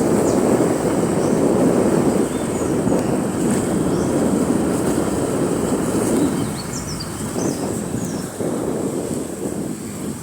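Steady low rushing noise of wind buffeting the microphone, easing a little after about six seconds, with a few faint high chirps near the middle.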